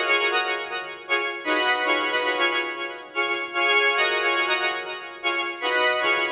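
Unaccompanied keyboard, organ-like, playing held chords that change about every second and a half, with no bass or drums.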